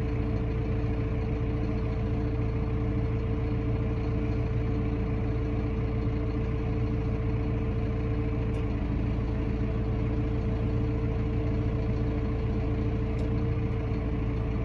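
Tractor engine running steadily, heard from inside the cab: a constant low drone with a held tone over it.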